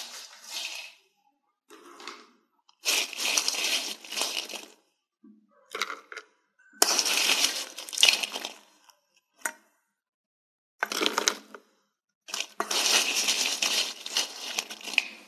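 French fries being tossed and stirred in a frying pan, a crisp rustling and scraping that comes in several bursts of a second or two with silences between.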